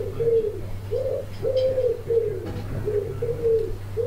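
A pigeon cooing: a run of repeated low coos, about two a second, over a steady low hum.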